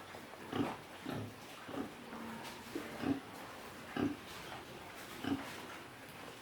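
Pigs grunting: short, separate grunts at irregular intervals, roughly one a second.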